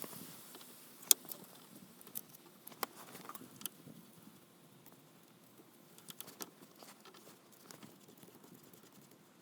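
Scattered light metallic clicks and taps of hand tools working on a tie rod end nut, with a sharper click about a second in and a small cluster of clicks about six seconds in.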